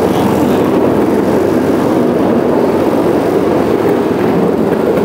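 Go-kart driving steadily at speed, a loud even rumble from the kart with rushing air, no change in pace.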